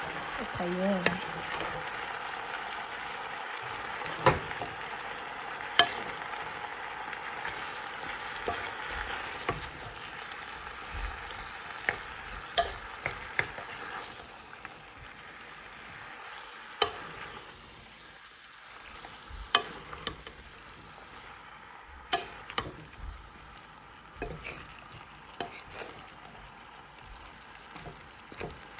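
Purple cabbage and squash sizzling in oil in a pan while being stirred, with sharp clacks of the cooking utensil against the pan every second or two. The sizzle dies down over the second half.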